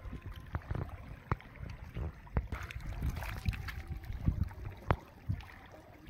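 Cast net being hauled in through shallow river water: water sloshing and dripping from the mesh, with scattered light knocks and clicks.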